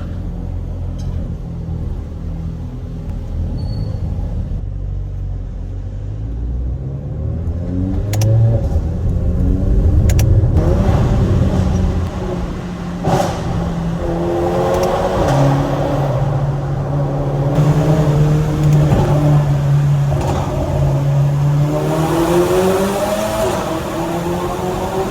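Mercedes-AMG GLA45's stage-2-tuned 2.0-litre turbocharged four-cylinder, fitted with a downpipe, an open intake filter and a pop-and-bang map. It drones low, then climbs in pitch through several pulls, holding a steady drone for a while in the middle. A few sharp cracks come through as it goes.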